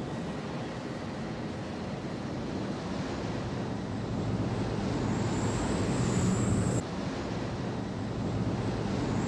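Jet fighter in flight: a steady roar of engines and rushing air, swelling slightly partway through. A thin, high, wavering whine joins about five seconds in, cuts off suddenly near seven seconds, and comes back near the end.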